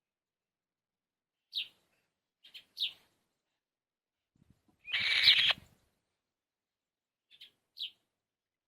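Young birds at the nest giving short, high chirps, singly and in quick pairs, with a louder, harsher burst of sound lasting about half a second around five seconds in.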